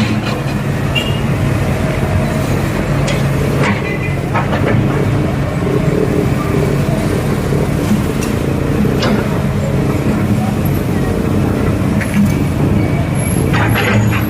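Backhoe engine running steadily at a low, even pitch, with a few sharp clanks now and then.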